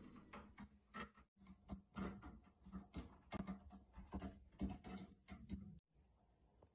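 A cat's claws scratching a sisal rope wrapped around a table leg: a run of short, irregular scratching strokes, about three a second, that stops abruptly near the end.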